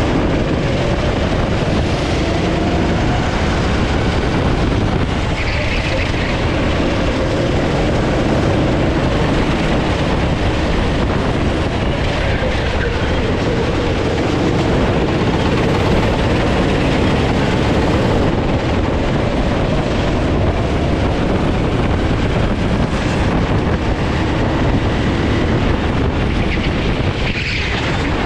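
Onboard sound of a Sodi rental go-kart at race pace: its engine pitch rises and falls repeatedly as it accelerates and slows through the corners, over a constant rush of noise.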